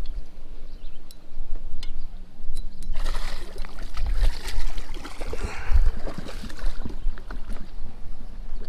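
Water splashing and sloshing at a boat's side as a hooked bass is brought in and landed, with rustling and knocks from the angler's movements close to the microphone. The splashing and rustling start about three seconds in and ease off near the end.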